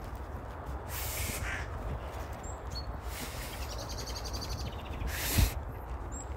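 Outdoor countryside ambience: a steady low rumble of wind on the microphone, with a few scattered bird calls, and a brief bump about five seconds in.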